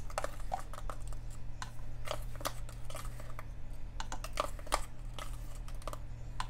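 Light, irregular clicks and taps of a measuring spoon scooping dry ranch seasoning mix out of a plastic tub and knocking against the rim of a plastic blender cup, over a steady low hum.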